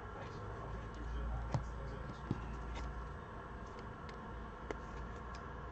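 Trading cards and foil packs being handled: a few faint clicks and taps over a low steady hum.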